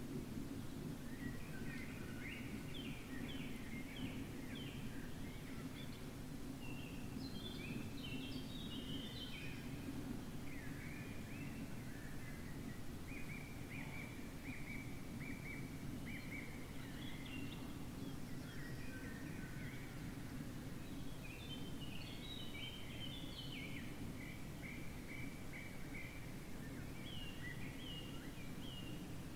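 Wild birds singing, short repeated notes and phrases coming in runs throughout, over a steady low hum.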